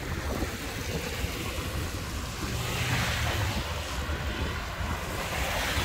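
Wind buffeting the microphone with a low rumble while riding an e-bike along the road, a rushing hiss swelling twice, about three seconds in and again near the end.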